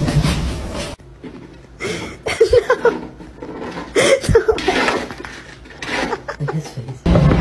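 A person laughing in short bursts, about two seconds in and again about four seconds in.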